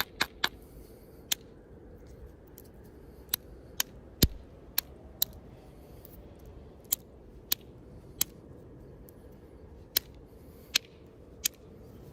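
Flint knapping: a bopper striking a hornstone blade in sharp, irregular clicking taps, about fifteen in all, with a quick run of taps at the start. The loudest strike, with a deeper knock, comes about four seconds in.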